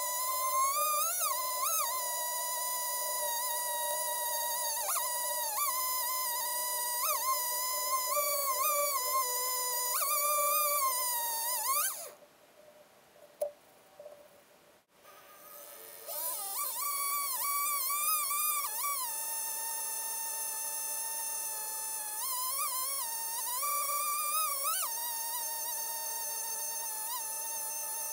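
Two-stroke chainsaw running at high revs as it cuts through a cedar stump in a chainsaw mill, its pitch dipping and recovering as the chain loads up in the wood. The sound breaks off for about four seconds near the middle, then comes back at full speed.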